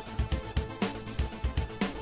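Upbeat background music with a fast, steady drum beat and a sharp hit about once a second.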